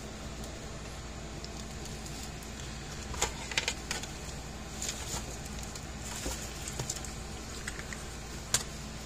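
Tools being picked up and handled on a wooden workbench, a soldering iron and a spool of solder among them: scattered light clicks and knocks from about three seconds in, the sharpest near the end, over a steady background hum.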